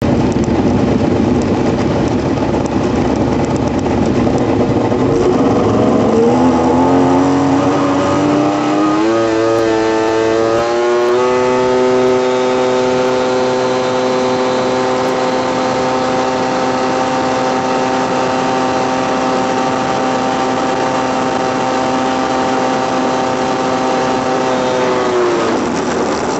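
Big-bore 1390cc Yamaha GP1200R two-stroke triple jet ski engine at full throttle. It sounds rough at first, climbs in pitch for about five seconds as it comes up to speed, and then holds a high, steady note at top speed. Near the end the pitch drops and the sound cuts off suddenly.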